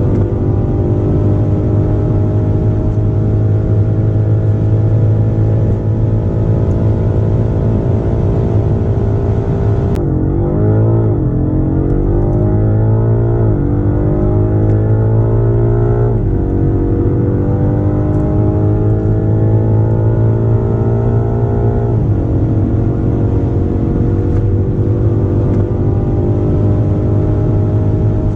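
Twin-turbo V8 of a high-performance sedan accelerating hard, its pitch climbing slowly through the gears. Several gear changes drop the pitch and it climbs again: a quick run of them in the middle and one more about three quarters of the way in.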